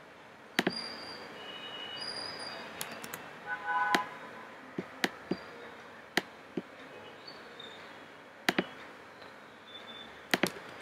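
Computer mouse clicking: about ten sharp single clicks at irregular intervals, with faint short high chirps in between.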